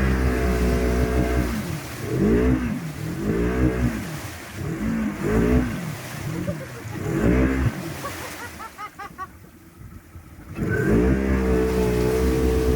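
Polaris RZR 900 side-by-side's engine revving hard. It is held high at first, then blipped up and down about five times, drops off briefly, and is held high again near the end.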